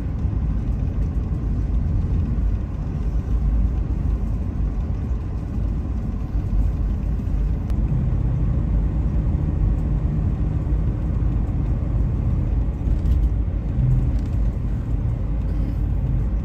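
Camper van driving, heard from inside the cabin: a steady low rumble of road and engine noise, with a low engine hum coming in about halfway through.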